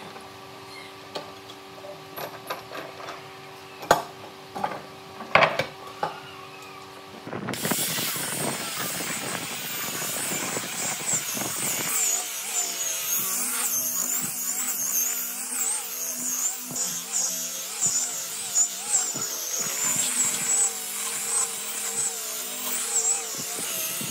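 A few knocks and taps over a steady hum. About seven seconds in, a power tool starts and runs steadily on wood, with a wavering high whine.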